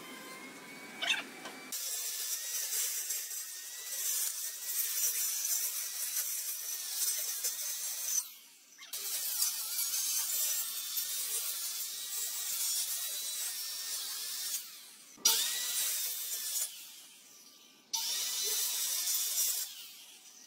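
Handheld electric circular saw running and cutting through wooden pallet slats, a high whine with rushing noise. It comes in several runs with short breaks, the longest from about 2 s to 8 s and from about 9 s to 15 s, with a sharp knock around 15 s and shorter runs after.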